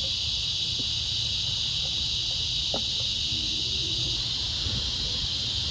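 A steady, high-pitched chorus of insects, such as crickets calling at dusk, with a faint low rumble underneath.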